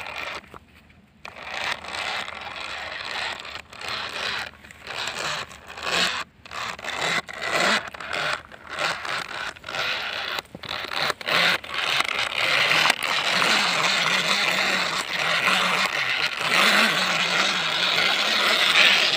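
Plastic toy truck loaded with sugarcane being dragged on a string through dry grass and straw: its wheels and load scrape and rustle through the stubble in uneven pushes, becoming steadier and louder in the second half.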